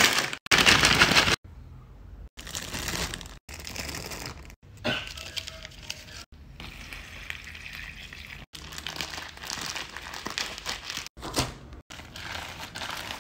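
Crinkling plastic and crunching chips as a bag of chips is crushed by hand and the pieces are worked around in plastic bags. Loudest crushing in the first second and a half, then quieter rustling with a few sharper crackles.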